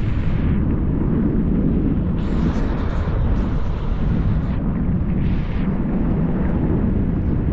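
Steady low rumble of wind buffeting the microphone on a moving vehicle, with road noise underneath. Louder gusts of hiss come about two seconds in and again around five and a half seconds.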